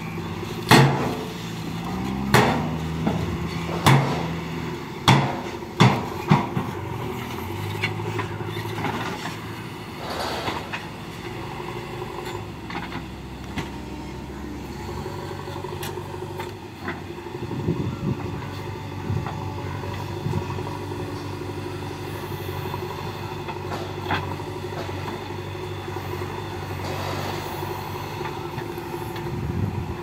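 Diesel engines of a Tata Hyva 2628 tipper truck and a JCB 3DX backhoe loader running under work. In the first seven seconds, as the tipper body tips mud, a series of sharp knocks comes about once a second; after that the backhoe's engine runs steadily, rising at moments as it pushes soil with its front bucket.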